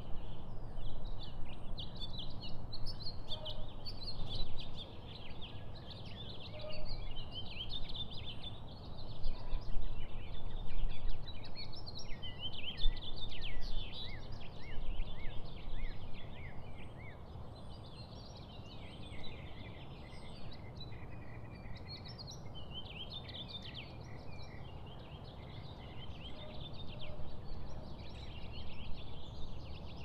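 Many small birds chirping and chattering together in a dense, busy chorus. It thins out about halfway through and picks up again near the end, over a low steady background rumble.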